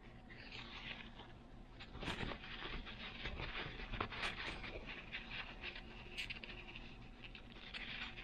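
Paper towel rustling and crinkling as a carburetor body is wiped clean by hand, with small clicks and taps of the metal carburetor being handled.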